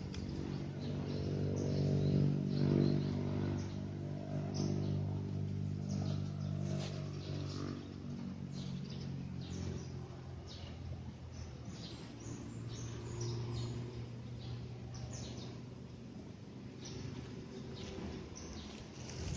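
Small birds chirping in short, repeated high calls, with a steady engine hum underneath that is loudest a couple of seconds in and fades by about the middle.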